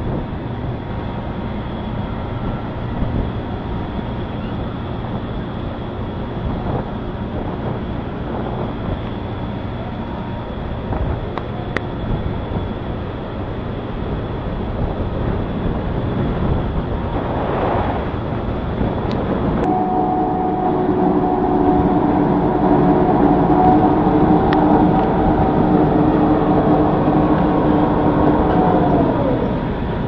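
Steady machinery noise from cargo-handling equipment aboard a ship discharging cargo. About two-thirds of the way through, a steady whine of several tones sets in, drops in pitch and stops near the end.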